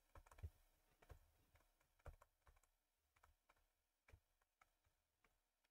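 Faint, irregular clicks and taps of a stylus on a tablet screen during handwriting, about a dozen over near silence.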